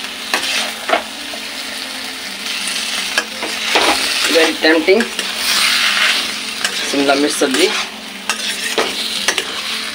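Spatula stirring and scraping through potato and capsicum sabzi in an aluminium kadai, with the food sizzling in the pan; a few scrapes squeak against the metal.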